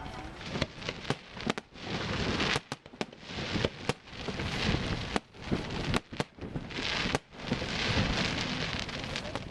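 Fireworks display: many sharp bangs at irregular intervals over a steady crackle of bursting shells.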